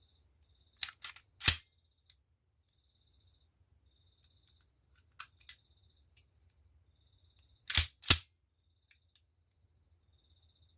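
Freshly reassembled Colt 1911 pistol being function-tested: sharp metal clicks of the action being worked and the hammer dry-fired, in three small groups, about a second in, around five seconds and near eight seconds, the loudest a pair of snaps near the end.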